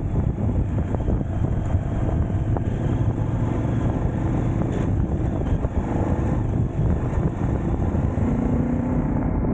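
Motorcycle engine running steadily at riding speed, heard from the rider's own bike, with wind rumbling on the microphone. A clearer engine tone comes up near the end.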